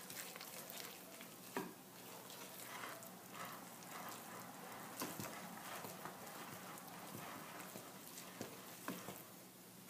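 Wooden spoon stirring thick cookie dough in a glass mixing bowl: a faint, steady scraping and squelching, with a few sharper knocks of the spoon against the glass.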